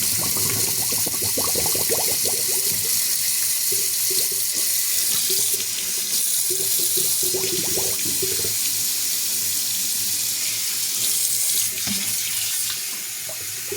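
Tap water running steadily while a puppy is being washed and rinsed.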